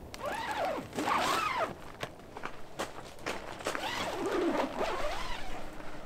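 Zipper of a Dometic HUB inflatable tent's window panel being pulled open in two long drags, its rasp rising and falling in pitch as the pull speeds up and slows. Fabric is handled in between, with a few light clicks.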